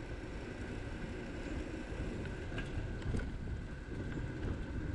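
Wind buffeting the microphone of a camera riding on a moving bicycle, a steady low rush with a faint steady high hum beneath it and a couple of light ticks about halfway through.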